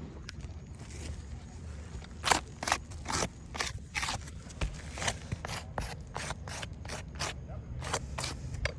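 A series of short, irregular scrapes and scuffs, roughly one or two a second, over a low steady background rumble.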